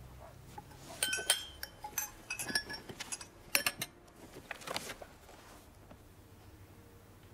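A wine glass clinking against a hard surface several times as it is set down, with short ringing chinks, followed by a soft paper rustle as a large folder's cover is opened.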